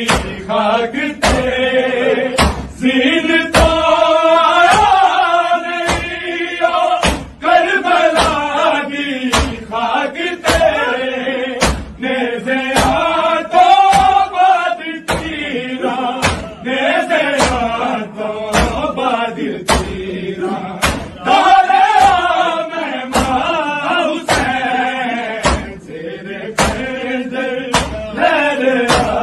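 Male voice singing a Punjabi noha, a lament for Imam Hussain, in a slow chanting style. It is kept in time by a steady beat of sharp thumps, about three every two seconds.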